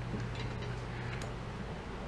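A few faint, light clicks of a small metal pick working in a hole in the KitchenAid mixer's metal gear housing, over a steady low hum.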